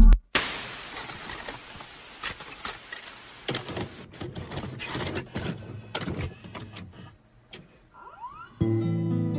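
Hissing static with scattered crackles and clicks. It begins suddenly, thins out after about four seconds into sparse clicks, and guitar music starts near the end.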